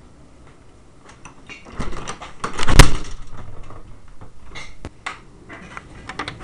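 Knocks, clicks and rattles of a door being handled close to the microphone, with one loud thump a little under three seconds in.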